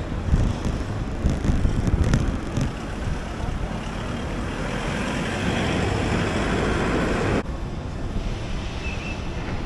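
City street traffic with wind buffeting an action camera's microphone. A rush of noise builds in the middle and cuts off suddenly about seven seconds in.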